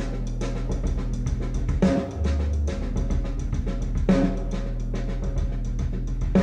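Music played through Focal Theva N1 bookshelf speakers: a jazz piano-trio track with fast, busy drum ticks and a heavy accented hit about every two seconds over sustained bass notes.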